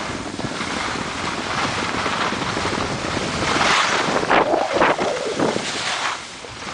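Wind buffeting the camera microphone while skiing downhill, with skis hissing and scraping over the snow; the rushing swells in a few swishes around the middle.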